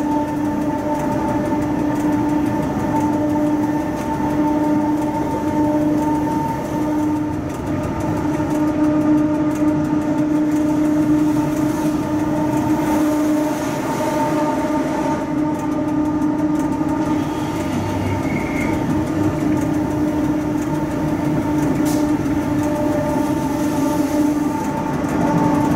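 Cab interior of a Rhaetian Railway Ge 6/6 II electric locomotive running with a freight train: a steady droning hum with a few constant tones from the locomotive, over the rumble of the wheels on the rails.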